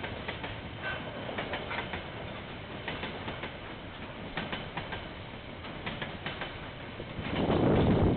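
Container wagons of a KiwiRail freight train rolling past, heard through a security camera's microphone: a steady rumble with wheels clicking over the rail joints. A louder low rumble swells for about a second near the end.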